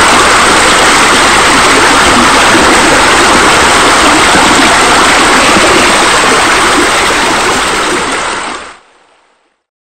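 Steady sound of running, splashing water, like a pool's water features, which fades out and stops near the end.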